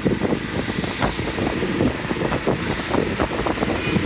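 Wind buffeting the microphone over the steady noise of a moving vehicle, rough and crackly throughout.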